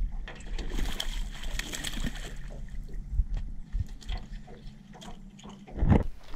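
Water lapping and sloshing against an aluminium jon boat hull, under a low steady hum, with scattered light knocks of handling in the boat and a heavier bump near the end.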